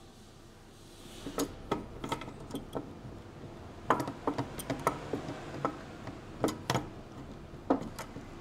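Irregular sharp metal clicks and taps as a valve body is worked into place against an A6MF1 automatic transmission case, starting about a second in.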